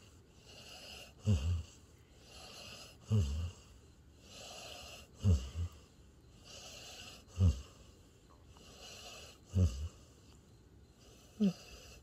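A sleeping border collie–Australian shepherd mix snoring in a steady rhythm. There is a short, low snore about every two seconds, six in all, and each one is followed by a softer, airy breath.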